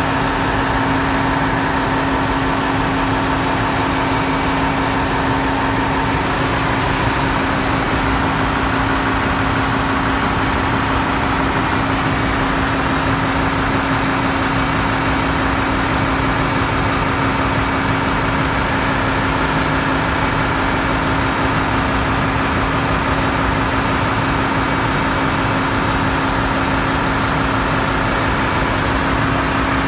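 Loud, steady engine-room noise from running diesel machinery, with a constant hum.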